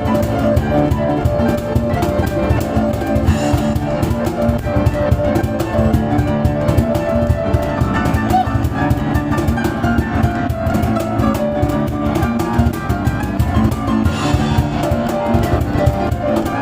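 Live grand piano improvising fast, driving lines, with a cajon beating a dense, fast rhythm underneath.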